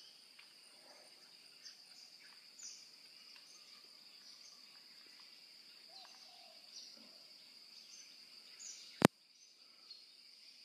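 Forest ambience: a steady high-pitched insect drone with scattered short bird chirps. A single sharp click about nine seconds in.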